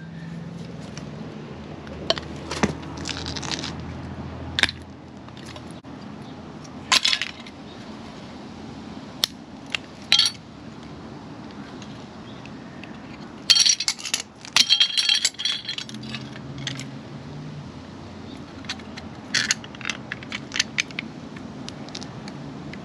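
Metal tool striking a die-cast metal 1/24-scale Ford Mustang model: scattered sharp metallic clinks and clanks, with a quick flurry of strikes about two-thirds of the way through. The steel body is resisting being broken.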